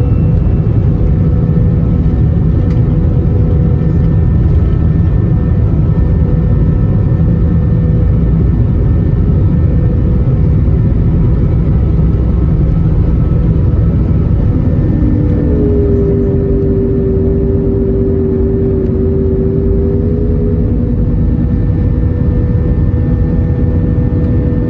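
Airbus A319 jet engines at takeoff thrust, heard from inside the cabin, over a heavy runway rumble from the wheels. The rumble eases about halfway through as the aircraft lifts off. A steady whine joins in about two-thirds of the way through.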